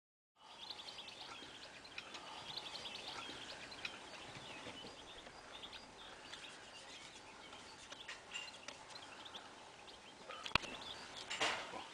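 Faint outdoor ambience of small birds chirping and calling in many short notes over a soft hiss, with a sharp click near the end followed by a brief, louder burst of rustling noise.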